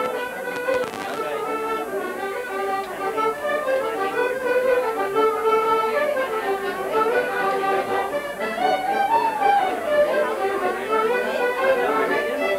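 A fiddle playing a quick, flowing tune of rapid notes, of the kind used for Irish dancing.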